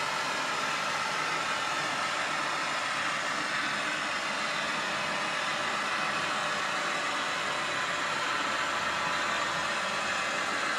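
Steady diesel-engine running noise with a strong hiss, even in level throughout.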